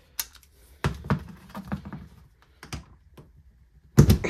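Irregular clicks and clatter of a hand tool working a carburettor mounting bolt on an old Honda generator engine, with a heavier thunk near the end.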